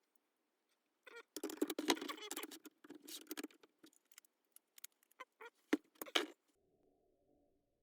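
Hand plane being handled and reassembled: a run of small metal clicks, rattles and rustling as parts are fitted, densest just after a second in and stopping about six and a half seconds in.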